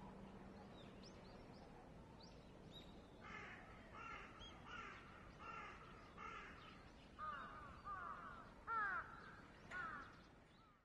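A crow cawing: a quick run of short caws starting about three seconds in, then a few louder caws that slide downward in pitch near the end. Faint small-bird chirps come early on.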